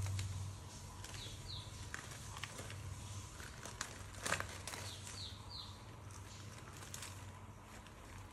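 A knife slitting and hands peeling apart a charred, grilled banana-leaf wrapping: dry leaf crackling and rustling in scattered small clicks, with one louder crack about four seconds in. A low steady hum runs underneath.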